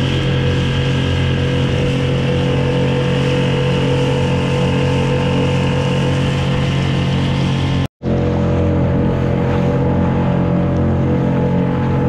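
Outboard motor on a small skiff running at a steady speed, with water rushing past the hull. The sound cuts out for an instant about eight seconds in, then carries on unchanged.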